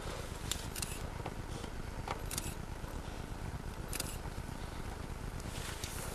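Steady low rumble of wind on the camcorder microphone, with a handful of short clicks and scrapes scattered through it, the sharpest about two and a half and four seconds in.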